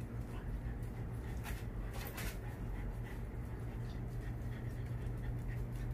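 Steady low hum of room noise, with a few brief scratchy clicks about one and a half and two seconds in.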